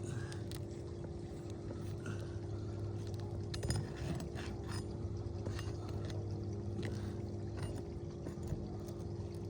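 Steady mechanical hum, with scattered sharp clicks and scrapes of a pry bar working under asphalt shingles to pull nails.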